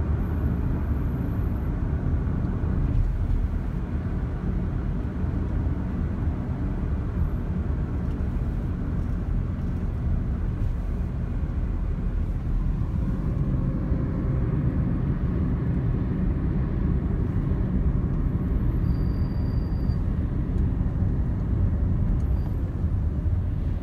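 Inside a moving car's cabin: a steady low rumble of engine, tyres and road noise while driving in traffic.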